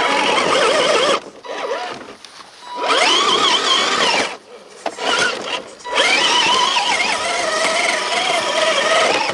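Electric motor and geared drivetrain of a 1/8-scale Traction Hobby Founder II RC rock crawler whining in repeated bursts as the throttle is worked, the pitch rising and falling with motor speed while the truck climbs over rocks.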